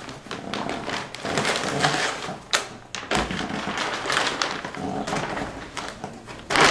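Thin plastic bag crinkling and rustling as it is pulled off a rack server, with a few sharp taps and a louder knock near the end as the server is handled in its foam packing.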